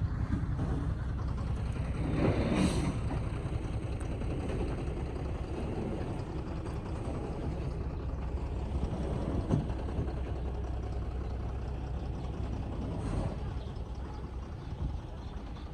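A heavy vehicle engine running steadily with a low rumble, swelling louder briefly about two and a half seconds in and again near the end.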